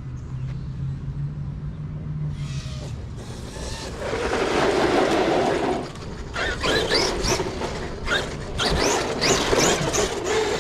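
Large electric RC monster truck driving. The loudest part is a rush of tyre and ground noise about four seconds in. After that the brushless motor gives several short whines that rise in pitch as it accelerates in bursts.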